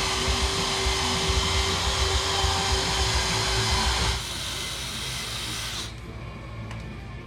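Steady whir of a small motor with a faint constant whine, cutting off about four seconds in and leaving a quieter hiss.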